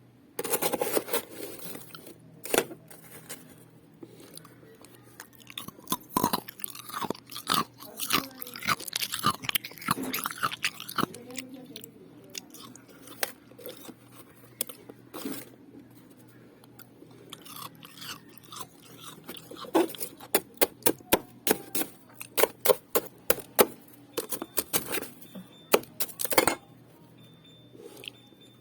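Refrozen shaved ice being bitten and chewed close to the microphone: sharp, irregular crunches in bursts with short pauses between, a quick run of loud snaps near the end.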